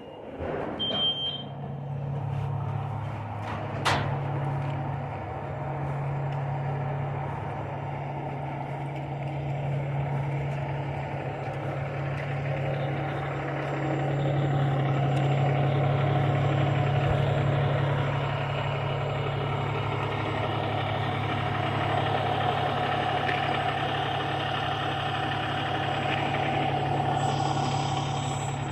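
A vehicle engine running steadily at idle, with a brief high beep about a second in and a sharp click at about four seconds.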